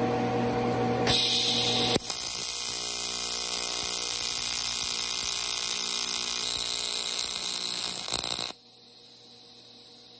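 AC TIG welding arc from a Miller Dynasty 280DX on aluminum plate, at about 90 amps, balling the end of an eighth-inch tungsten. It starts with a brief hiss about a second in, then a steady buzz. It cuts off sharply about a second and a half before the end.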